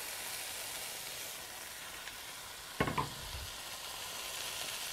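Diced baby red potatoes sizzling steadily in hot oil in a nonstick skillet, just after being tipped into the pan. A brief clatter about three seconds in.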